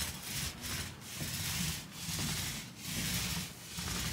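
Paint roller on an extension pole rolling thick, sand-textured deck paint over wooden porch boards: a rasping rub that swells with each stroke, about once a second.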